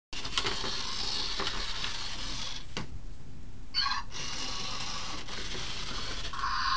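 A Zhu Zhu Pets robotic toy hamster's small motor whirring as it runs around its plastic track. The whirring stops for about a second just before the middle, a short warbling electronic sound comes, and then the running resumes. Near the end a steady electronic tone sets in.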